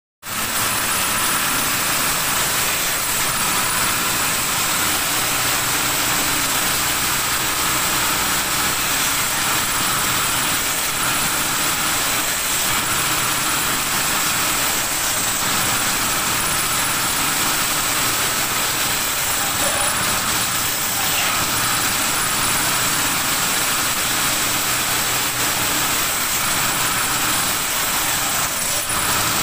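Table-mounted circular saw running steadily with a high whine while wood slats and branches are fed through the blade and cut.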